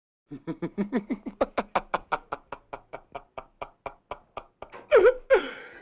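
Men laughing hysterically: a fast run of short staccato "ha" bursts, about six or seven a second, each falling in pitch, that breaks into two louder, drawn-out squealing laughs near the end.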